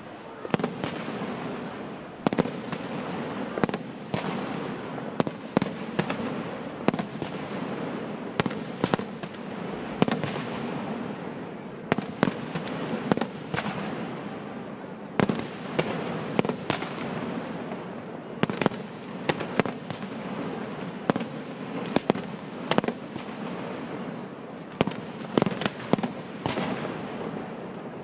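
Fireworks display: aerial shells bursting in sharp bangs at irregular intervals, roughly one or two a second, over a continuous wash of noise.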